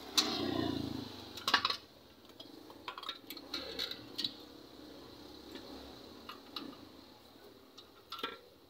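A sharp knock right at the start with a short rush of noise after it, then scattered clicks and light clinks, a cluster of them about a second and a half in.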